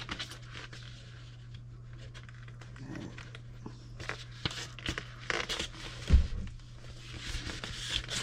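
Items being handled and fitted back into a box: scattered rustles, scrapes and small knocks, with one sharp knock about six seconds in, over a steady low hum.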